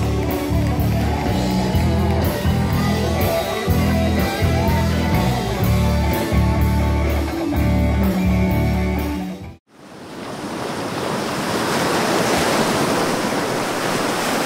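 Live soul vocal group singing over a band, with a steady beat and bass, cutting off abruptly about ten seconds in. A steady rushing noise like ocean surf then fades in and holds.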